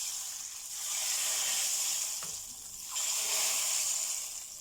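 Hot tadka oil with garlic, cumin, curry leaves and whole red chillies hitting a pot of cooked dal, sizzling loudly. The sizzle surges again about a second in and about three seconds in as more is poured, then dies down near the end.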